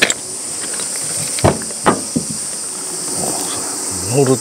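A steady high-pitched drone of insects, with a few sharp knocks and clicks about one and a half to two seconds in and a brief voice near the end.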